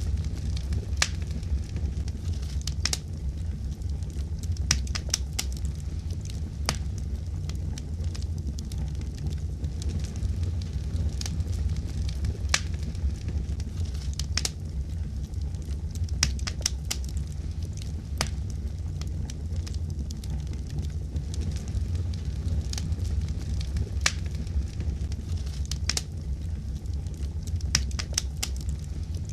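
Fire crackling, with irregular sharp pops and snaps over a steady low rumble.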